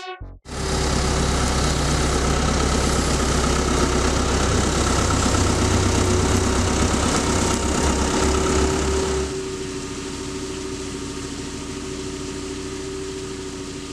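Same Iron 110 tractor's diesel engine running steadily as it pulls a Joskin Modulo 2 slurry tanker across the field while spreading slurry. The sound drops suddenly to a quieter level about nine seconds in as the tractor is heard from behind, moving away.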